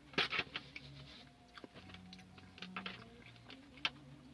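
Someone chewing fried chicken, with wet mouth clicks and smacks that are loudest just after the start, and a few more later on.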